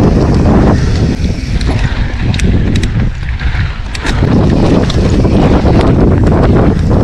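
Wind buffeting the microphone of a camera on a mountain bike riding down a dry dirt trail, with tyre rumble and sharp clicks and rattles from the bike over the rough ground. It eases off for a couple of seconds in the middle, then comes back up.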